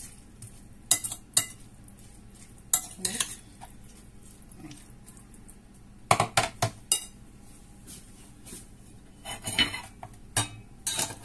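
Metal fork clinking and scraping against a ceramic bowl while stirring a wet seafood salad in sauce: irregular sharp clinks in small clusters, with a busier run about six seconds in and again near the end.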